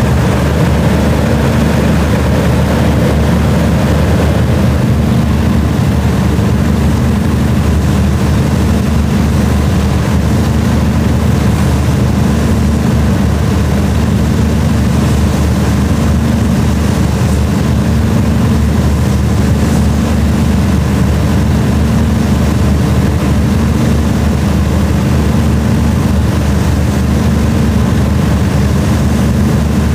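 Heavy diesel engine running steadily at idle, a loud constant low drone with no revving.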